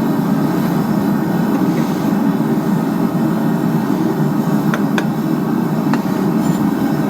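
A forge running with a steady low roar, with a few light metallic ticks about five and six seconds in.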